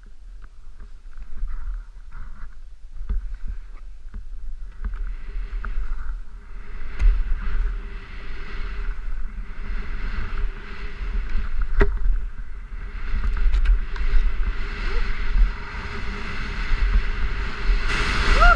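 Skis hissing through deep powder snow, the hiss swelling and fading with each turn, over a low rumble of wind buffeting the camera microphone.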